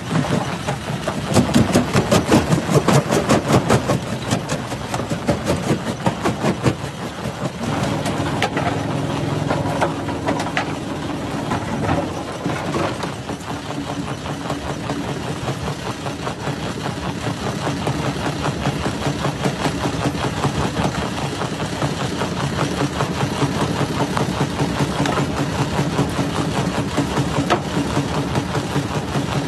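Rock crusher (jaw crusher) machine running. Rapid crunching and knocking come through in the first several seconds, then settle into a steadier engine-like hum.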